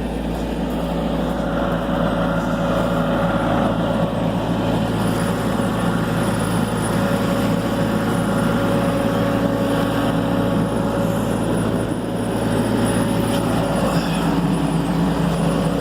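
Skid steer engine running steadily at working revs, with a constant hum and a higher whine.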